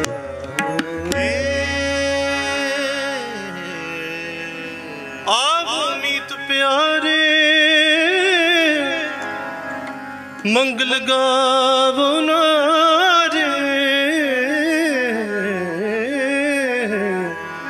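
Gurbani kirtan: harmoniums holding sustained chords, with tabla accompaniment. About five seconds in, a long ornamented vocal line enters with much pitch bending, and it starts again after a short break at about ten seconds.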